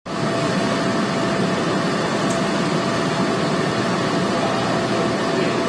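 Steady machinery noise: an even rushing hum with a faint steady whine running through it.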